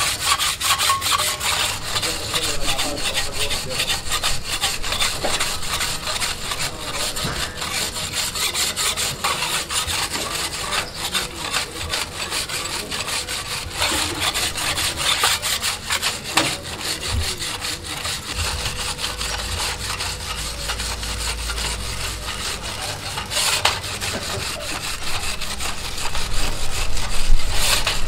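Hand wire brush scrubbed quickly back and forth over a truck clutch disc, cleaning it: a continuous rasping scrape made of fast, rapid strokes.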